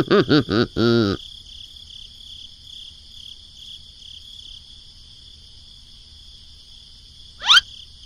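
Crickets chirring in a steady, wavering high trill. It opens with a brief burst of high-pitched, cartoon-like vocalizing, the loudest sound here, and near the end a quick rising whistle-like chirp.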